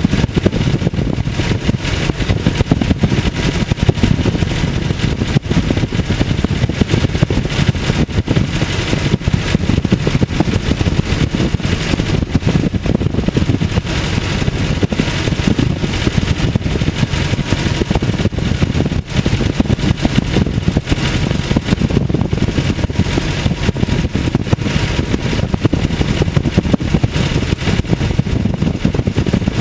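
Piper J-3 Cub's engine and propeller running steadily in flight, heard from inside the cockpit, with constant rushing air noise, on approach to landing.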